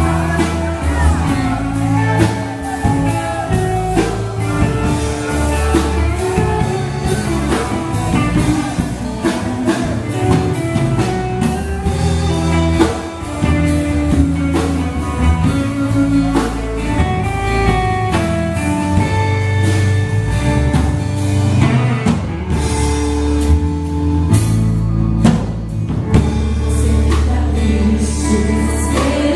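Live gospel worship music: a band with drums, bass and guitar accompanying singing.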